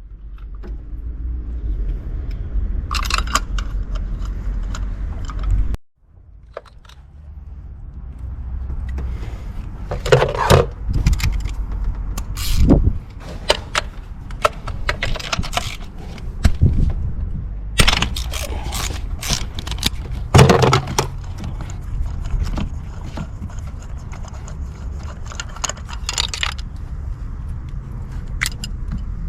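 Irregular metallic clinks and scrapes of hand tools and engine parts being handled during spark plug work, over a steady low rumble.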